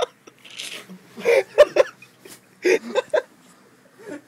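A person's voice in short non-word outbursts, two louder ones about one and a half seconds apart, with a breathy rush of air before them.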